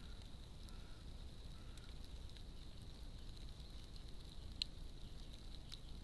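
Steady low hiss with a thin high whine from a trail camera's microphone. A few sharp ticks, the loudest about two-thirds of the way through, come from a European robin pecking at seed in a feeding tray.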